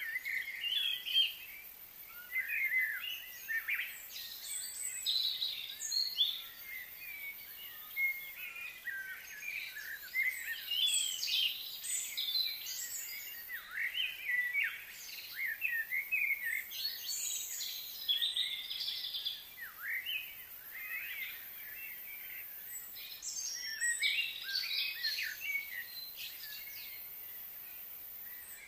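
Many birds chirping and calling over one another in a dense chorus of short chirps and quick sweeping notes, thinning out near the end.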